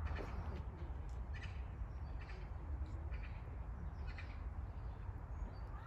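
Crows cawing several times, short separate calls spread over a few seconds, above a low steady rumble.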